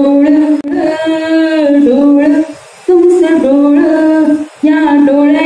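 A woman singing a Marathi bhavgeet unaccompanied into a handheld microphone, holding long notes in several phrases with brief pauses between them.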